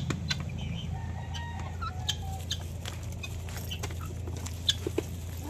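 Chickens eating grain from a feeding pan: many quick ticks of beaks pecking at the grain and pan, with short soft clucks now and then. A steady low hum runs underneath.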